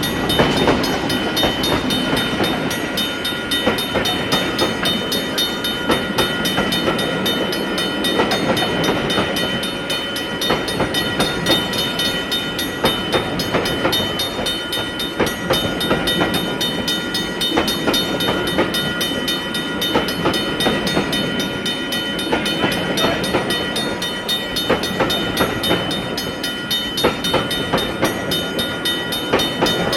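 Train sound effect: railroad cars rolling past, a steady rumble with frequent wheel clacks over the rail joints.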